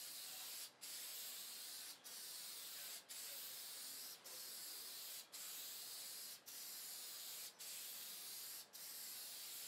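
Aerosol shellac spray hissing steadily from the can in passes of about a second each, with a brief break between passes: a sealing coat going over freshly stained wood.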